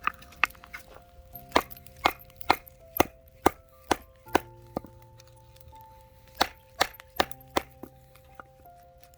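Batoning: a baton repeatedly strikes the spine of a knife driven into a piece of firewood to split it. The sharp knocks come about two a second, in a run of several blows, then a pause, then four more blows. Background music plays throughout.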